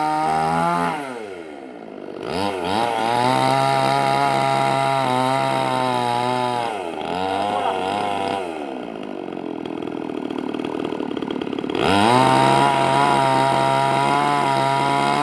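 Chainsaw engine revving hard, dropping to idle about a second in, revving back up, easing off again around the middle and idling unevenly for a few seconds, then revving up once more near the end.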